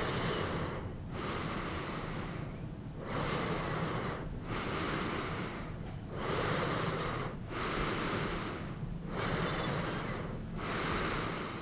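A person breathing heavily and noisily with a hand over the mouth, a long breath about every second and a half.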